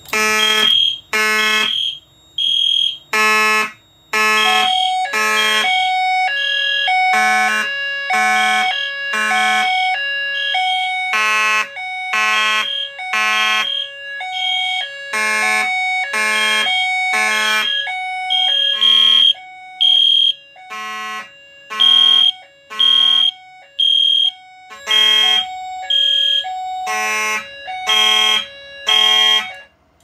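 Several fire alarm notification appliances sounding together in overlapping pulsed patterns: a Simplex mechanical horn on code 3 (temporal) and an EST Genesis horn, among others, with the system in alarm from a key-switch test activation. The pulses stop abruptly near the end.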